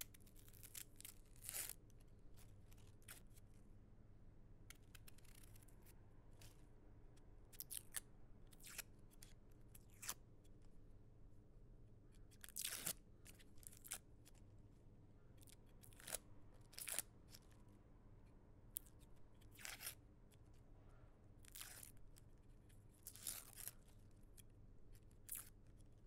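Dry onion skin being peeled: short papery crackles and tearing rustles at irregular intervals, over a faint steady low room hum.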